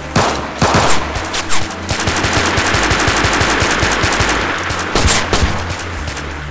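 Shootout gunfire: a few separate shots in the first second and a half, then a rapid string of shots for about three seconds, and another couple of sharp shots about five seconds in. A low steady drone runs underneath.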